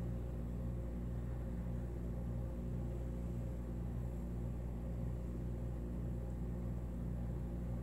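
A steady low machine hum made of several held low tones, unchanging throughout.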